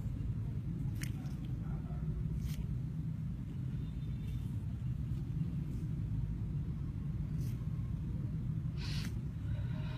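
A steady low background rumble, with a few faint clicks scattered through it, the clearest near the end.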